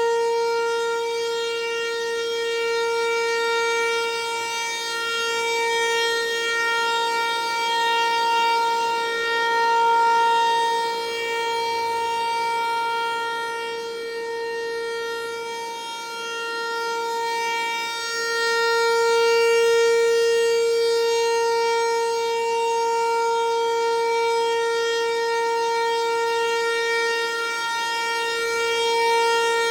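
ASC Tempest-135 AC/DC outdoor warning siren sounding a steady tone during a test, holding one pitch throughout. Its loudness swells and fades, peaking about every ten seconds.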